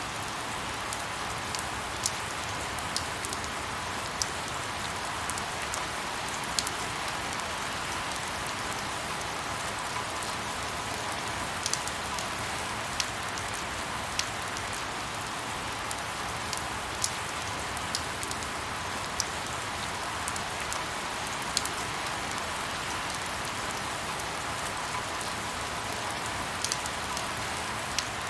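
Steady rain falling: an even hiss with scattered sharp ticks of single drops striking close by.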